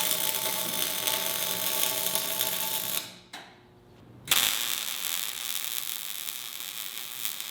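Electric welding arc crackling steadily as a weld is run on a steel plate and tubing; it stops about three seconds in and a second bead starts about a second later.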